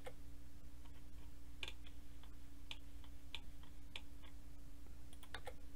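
Irregular clicks of a computer mouse and keyboard, about a dozen scattered through, over a steady low hum.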